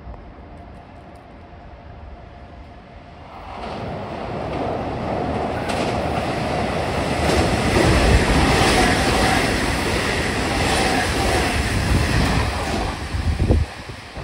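Nishitetsu 3000 series six-car electric train passing through a station at speed without stopping. Its running noise swells from about three and a half seconds in to a loud rumble with repeated clacks of wheels over rail joints, then falls away suddenly near the end as the last car clears.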